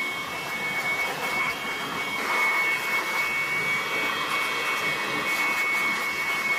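Stanley corded electric hand blower running steadily, a high whine over a rush of air, blowing dust out of a car's engine bay.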